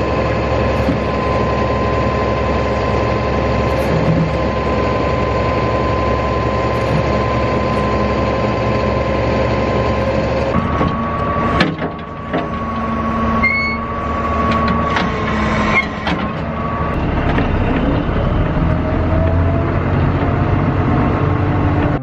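Big John 65-inch tree spade truck running, its engine drone carrying a steady high whine as the hydraulics work the spade. About halfway in the whine changes and a few sharp metal clanks and knocks follow, with a slowly rising whine near the end.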